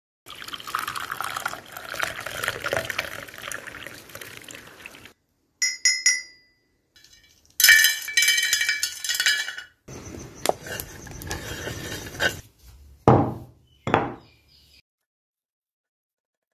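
Rain pattering for about five seconds. Then a short ringing clink, a bright stretch of dry whole spices rattling in a metal pan, and two sharp knocks.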